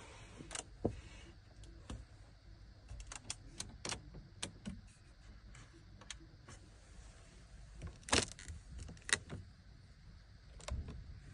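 Interior trim of an electric car being pressed and worked by hand to provoke squeaks: scattered small clicks and creaks, with two louder knocks about 8 and 9 seconds in.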